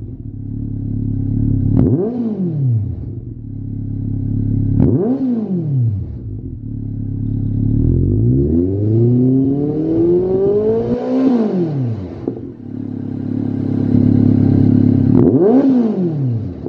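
Honda CB1300's inline-four engine, breathing through a Lextek OP1 aftermarket silencer, idling and revved by hand while stationary. It gives three quick throttle blips, and near the middle a slower rev climbs for about three seconds before falling back to idle.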